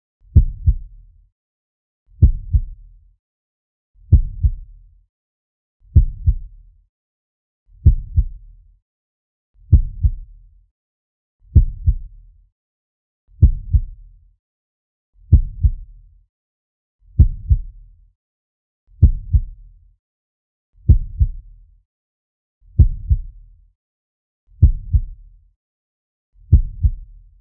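Slow heartbeat sound effect: low lub-dub double thumps, one pair about every two seconds, with silence between beats.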